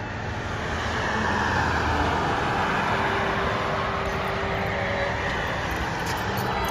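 Road traffic noise: a steady hum of passing cars that swells about a second in.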